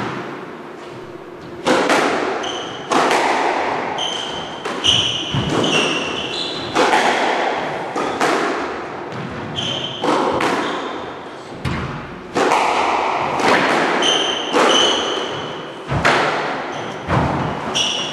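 Squash rally: the ball cracks off the rackets and court walls roughly once a second, each hit echoing around the court. Short high squeaks from shoes on the wooden floor come between the shots.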